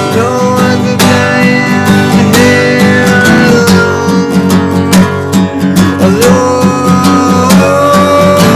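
Acoustic guitar strummed in a steady rhythm, with a long held melody line on top that slides up into each new note.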